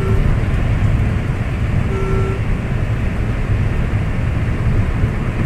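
Inside the cabin of a Maruti Suzuki Alto K10 running at about 140 km/h: its three-cylinder engine and steady, low road and wind noise. A short electronic beep sounds about two seconds in.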